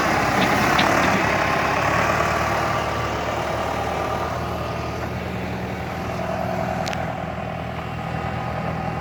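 John Deere tractor engine running steadily, slowly growing fainter as the tractor moves off.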